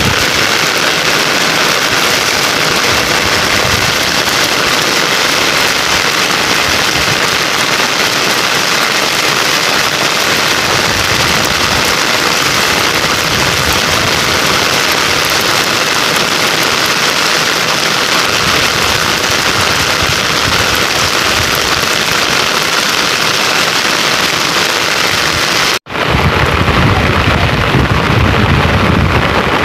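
Heavy rain falling steadily, a dense even hiss. It breaks off for an instant near the end and resumes with more low rumble underneath.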